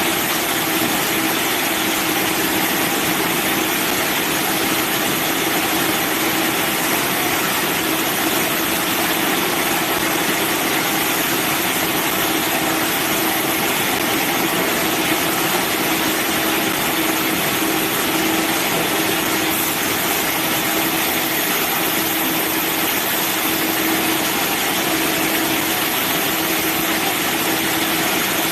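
Sawmill bandsaw machinery running with a steady, unchanging drone: a constant hum under a bright hiss.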